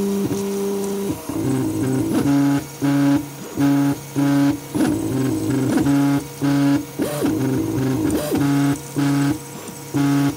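3D printer stepper motors whining in pitched tones as the axes move: a steady two-tone hum for about the first second, then a run of short repeated moves, each a brief buzz, with rising and falling glides between some of them.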